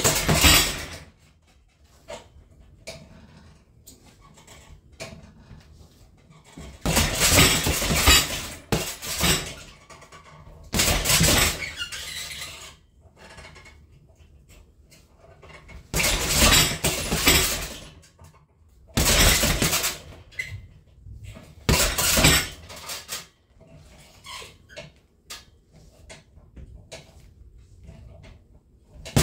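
Gloved punches landing on a hanging heavy bag in flurries of a second or two, about six times, with a metallic jangle from the bag's hanging chain and stand. Faint clicks fall in the gaps between flurries.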